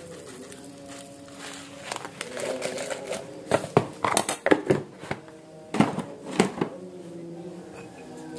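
Plastic bag of coriander seeds rustling as they are tipped into a stone mortar, followed by a run of sharp clicks and knocks over a few seconds from the mortar, pestle and utensils being handled.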